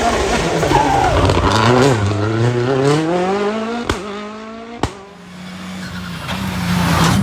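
Rally car engine accelerating hard, its pitch climbing steadily, with two sharp cracks about a second apart. The engine then fades, and engine sound builds again near the end.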